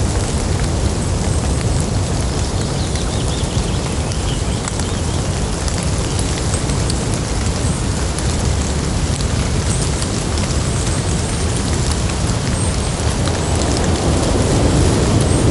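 Rain dripping and pattering on wet leaves: a steady wash of drops with scattered individual drips, over a low rumble of thunder that swells near the end.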